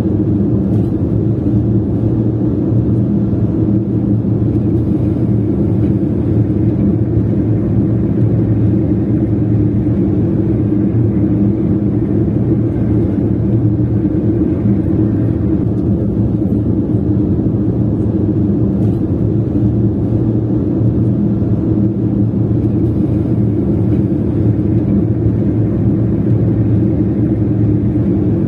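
A car driving along, its engine and tyre noise making a steady low drone.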